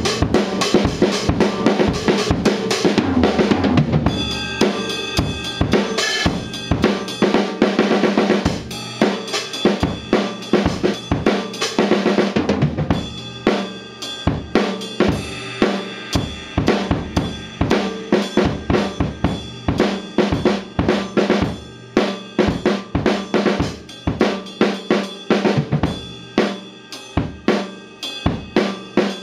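Acoustic drum kit played with sticks, starting suddenly into a dense wash of cymbals. After about a dozen seconds it settles into a steady beat of snare and bass drum with cymbal.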